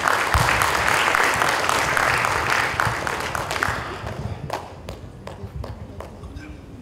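Audience applauding, full for the first three or four seconds, then thinning out to scattered claps.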